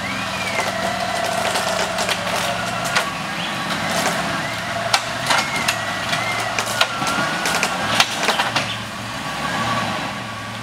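Toyota 4Runner's engine running at a steady idle while its front winch hauls it slowly up a steep dirt bank, with a wavering whine over the engine and scattered clicks and knocks.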